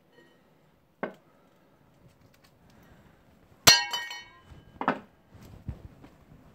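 Metal parts being handled and set down: a knock about a second in, then a sharp metallic clink that rings briefly, followed by a few duller knocks.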